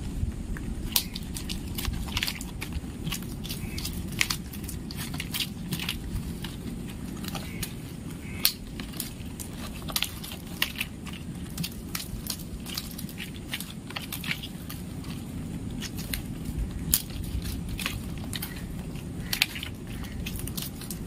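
Dry coconut palm frond leaflets crackling and rustling as they are folded and pulled through one another by hand in weaving a frond mat. There are irregular sharp clicks several times a second over a steady low rumble.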